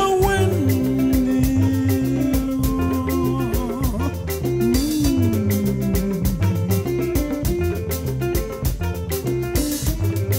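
Upbeat music with a steady drum beat and plucked guitar, a voice holding long sung notes that slide between pitches.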